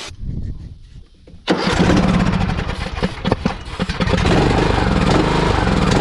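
Craftsman T130 riding mower's Briggs & Stratton engine starting about a second and a half in, running unevenly at first and then settling into steady running from about four seconds in, fed only by starting fluid sprayed into the air intake, with no gas hooked up.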